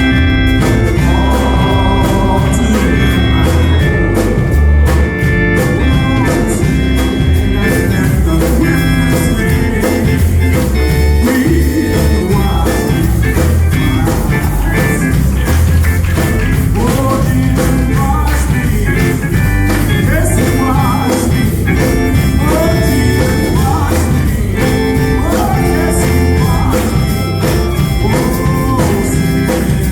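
Gospel music with Hammond organ, bass and drums, voices singing over it from about ten seconds in.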